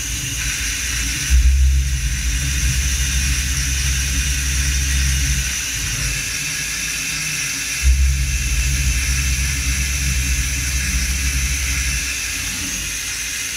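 Haas UMC-750 five-axis machining centre milling a part under flood coolant: a steady high spindle whine over coolant spray hiss. A deep rumble comes in with a jump about a second in, drops out near six seconds, and returns near eight seconds until about twelve.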